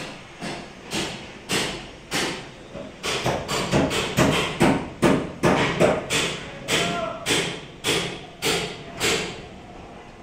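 Repeated hammer blows on metal, about two a second, coming faster and louder in the middle, then slowing and stopping shortly before the end.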